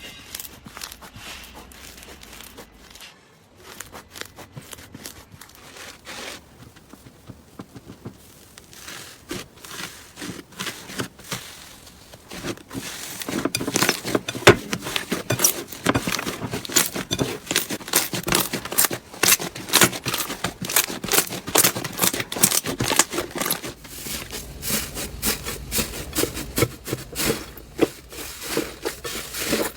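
Slime being squeezed and pressed by hand, giving a rapid run of sticky clicks, pops and crackles. It is fairly faint at first and grows much louder and denser about halfway through.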